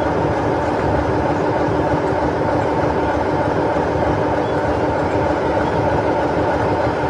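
British Rail Class 47 diesel locomotive idling steadily, its Sulzer 12-cylinder engine giving an even hum with a constant tone.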